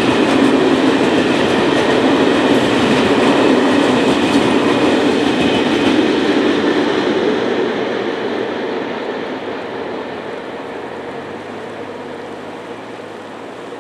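Freight train of loaded timber (log) wagons rolling past, wheels running on the rails. The noise holds steady for about six seconds, then fades as the last wagon clears and the train moves away.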